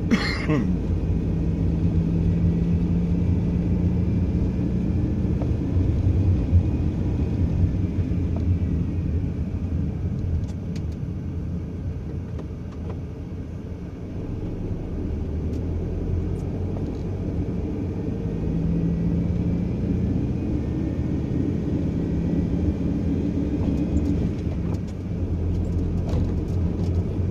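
Car engine and road noise heard from inside the cabin while driving slowly on a snow-covered road. The engine note drops for a few seconds about twelve seconds in as the car eases off, then picks up again.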